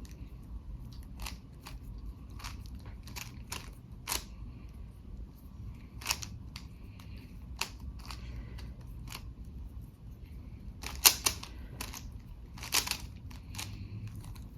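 Rubik's Cube being turned by hand in a speed solve: the plastic layers click and clack in quick, irregular runs, with a few louder clacks about eleven and thirteen seconds in.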